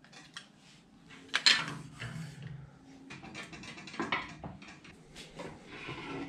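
Clanks, knocks and rattles as a mobile radio in a welded steel tube cage is set down, shifted and picked up on a steel workbench, with the loudest knock about a second and a half in and another about four seconds in.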